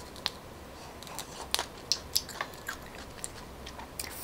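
A person biting and chewing coconut grubs, the larvae of the palm weevil, with irregular soft wet clicks and crunches.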